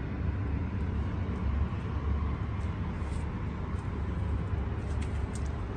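Steady low rumble of outdoor background noise with a faint hiss over it, and a few faint ticks.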